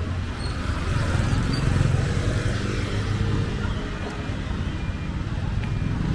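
Street traffic: small motorbikes running past at low speed, the loudest passing about two seconds in.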